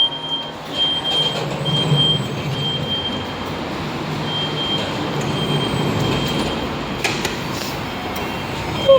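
Fujitec lift car running in its shaft: a steady rumble and rush of air, with a thin high whistle that comes and goes in short pieces and a single click about seven seconds in.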